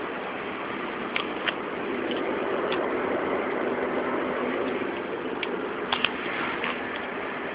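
Steady drone of a car running, with the abnormal hub noise the title points to: a worn wheel hub. A few sharp clicks come through it, the loudest a little over a second in and at about six seconds.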